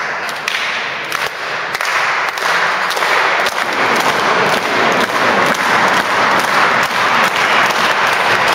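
Crowd applauding, a dense patter of many hands clapping that swells over the first few seconds and then holds steady.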